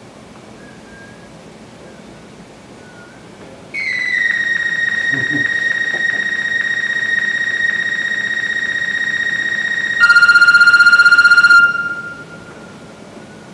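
Computer-synthesized MIDI playback of an algorithmic composition over the room speakers: about four seconds in, one high electronic note starts abruptly and is held steady for about six seconds. It then jumps to a lower, louder note with a fast wobble, which fades out after a second and a half.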